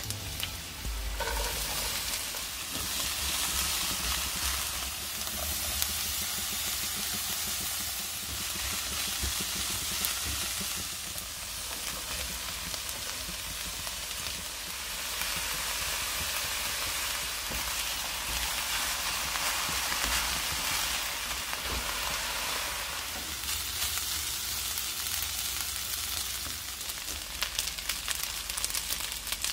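Chopped green onion, onion, diced Spam, king oyster mushroom and rice sizzling as they stir-fry in hot oil in a nonstick pan; a steady frying sizzle, with light clicks near the end.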